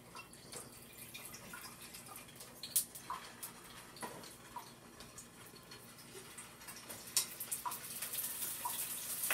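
Tongs clicking as chicken meatballs are lifted from a bowl and set into a frying pan, with a faint frying hiss that grows louder near the end as more meatballs go in.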